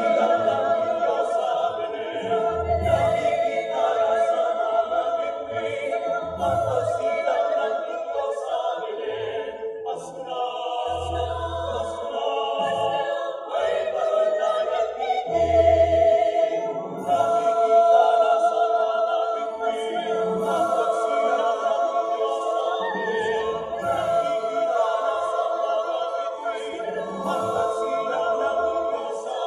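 Mixed choir of women's and men's voices singing in harmony into microphones, with long sustained chords.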